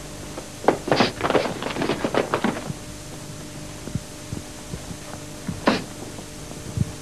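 Sparring hits and footwork on a mat: a quick flurry of impacts starting about a second in, then a single sharp hit and a low thud later on, over a faint steady hum.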